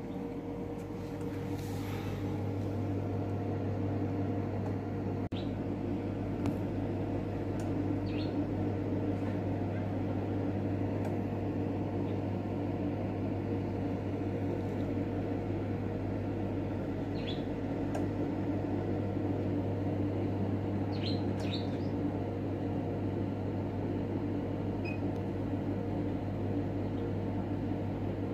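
Steady electrical hum of egg-incubator machinery running, with a few faint, short high peeps from goose eggs hatching scattered through it.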